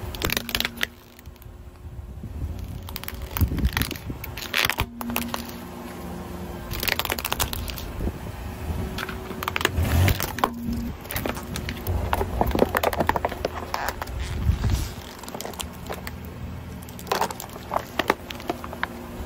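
A car tyre rolling slowly over small objects on asphalt and crushing them: a string of cracks, crunches and crinkles from plastic, packaging and eyeglasses giving way under the wheel.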